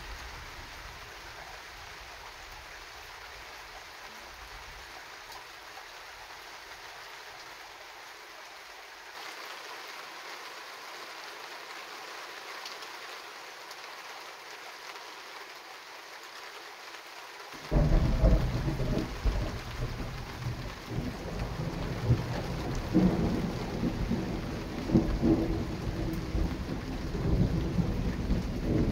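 Thunderstorm: steady rain hiss, then about two-thirds of the way through a sudden loud thunderclap that rolls on as deep rumbling thunder with repeated swells.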